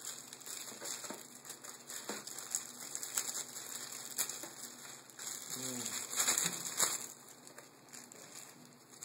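Clear plastic bag crinkling and paper leaflets rustling in the hands, a string of short crackles that is loudest about six seconds in.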